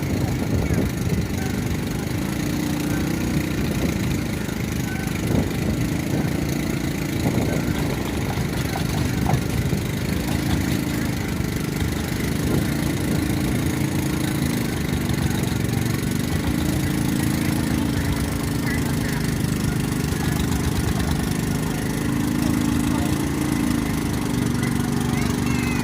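A fishing boat's engine running steadily at low revs, with wind noise over it.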